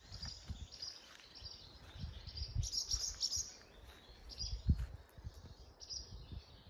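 Barn swallows twittering: short high chirps repeating every half second or so, crowding together for about a second near the middle. Under them are low thumps and rumble, one sharper bump a little after the middle.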